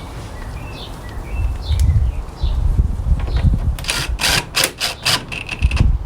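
Short bird chirps over an uneven low rumble, with a cluster of sharp clicks about four to five seconds in.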